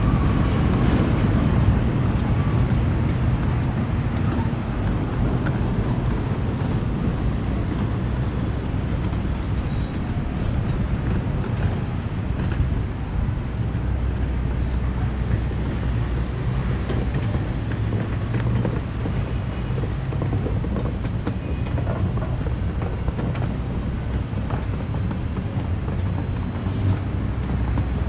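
Steady low rumble of outdoor city ambience along a waterfront walkway, with faint scattered clicks and ticks over it.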